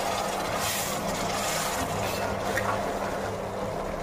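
Water sizzling in a hot steel pot of beef keema masala just after being poured in, a steady hiss over a low hum, with a brighter burst of hiss a little under a second in.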